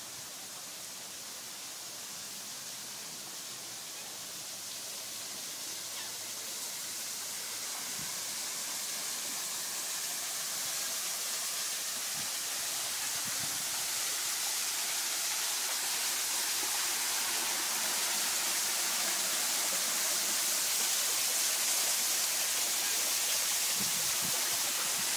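Steady rush of falling water from a waterfall, growing steadily louder.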